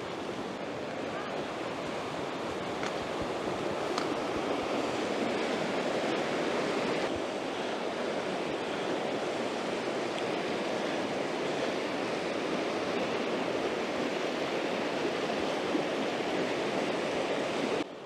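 Steady rush of a fast river in spate, swollen by heavy rain, tumbling over rocks, a little louder for a few seconds in the middle.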